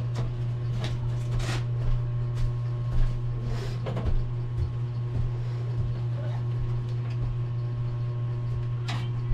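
Screwdriver working screws in a metal desktop computer case: scattered small clicks and knocks, a second or so apart, over a steady low hum.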